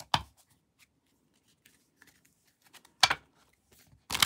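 Tarot cards being shuffled by hand: a short tap near the start, a sharp crackle of cards about three seconds in, and a rapid riffle of cards beginning just before the end, with faint card handling between.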